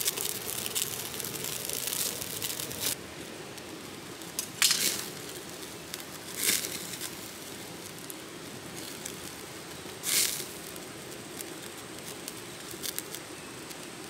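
Small campfire of dry sticks crackling, busily at first, with three louder pops spread through, over a steady hiss.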